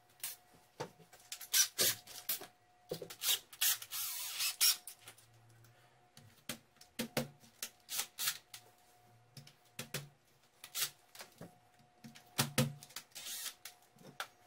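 Scattered clicks, taps and brief scraping rubs of hand work at a wall: a cordless drill and plastic wall anchors being handled and fitted. The drill motor is not run.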